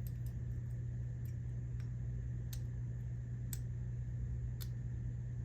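Sparse light clicks of a lock pick working the pin stack inside an American Lock padlock, with a few sharper clicks about midway and near the end, over a steady low hum.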